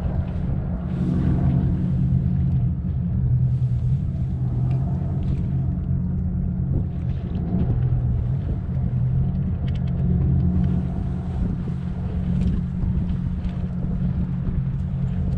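A steady low engine drone, with gusts of wind buffeting the microphone now and then.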